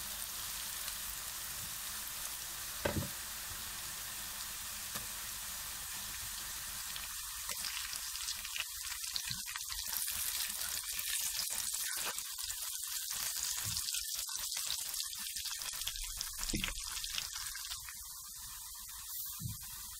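Sliced onions frying in hot oil in a wok, sizzling steadily, with a few short knocks from the spatula stirring them.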